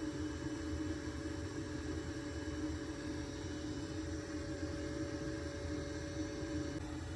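A steady mechanical hum with a few constant tones over low rumbling noise, unchanging throughout.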